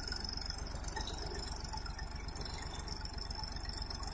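HMT 3522 DX tractor's diesel engine idling steadily with an even low throb.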